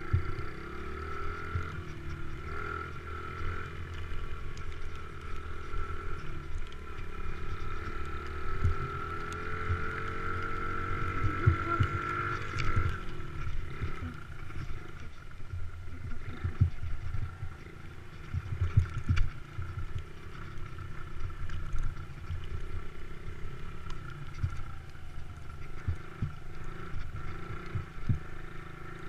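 Motocross bike engine running under way, its revs climbing steadily for several seconds and dropping off sharply about thirteen seconds in, with short thumps scattered throughout.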